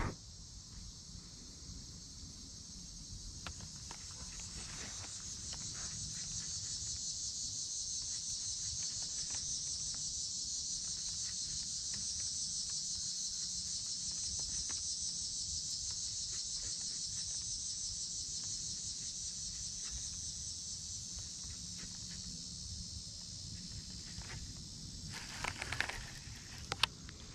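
Steady, high-pitched chorus of insects that slowly swells and then eases off, with a few sharp clicks near the end.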